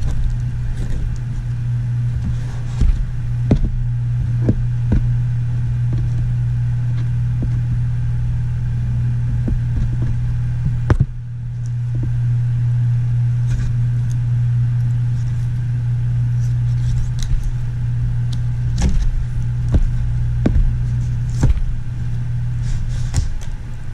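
A loud, steady low hum from a running machine, with scattered short taps and knocks of a butcher knife cutting and trimming a polar bear paw on a cardboard-covered board. The hum drops out for a moment about eleven seconds in.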